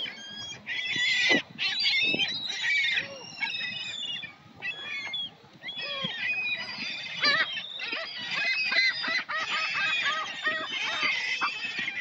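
A flock of gulls calling all at once, many overlapping high squawks and cries, as the birds crowd in to be fed.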